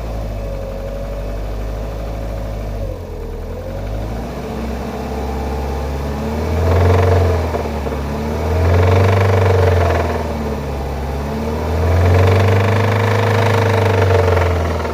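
Opel Vectra B 1.8-litre four-cylinder petrol engine idling, then revved three times, each rev rising and falling back to idle. The owner says this engine knocks.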